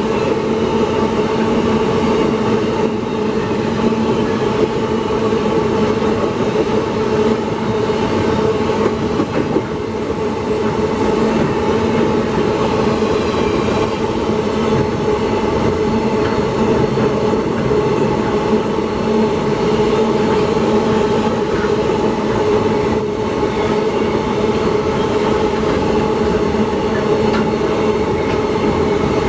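Empty iron-ore freight wagons rolling past at speed: a steady, loud noise of steel wheels on the rails with a steady ringing tone running through it.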